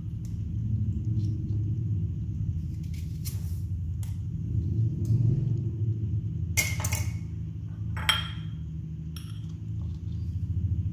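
A steady low rumble throughout, with light clicks and knocks of a knife and apple slices on a plastic cutting board, and a sharp ringing clink of a glass dish about eight seconds in.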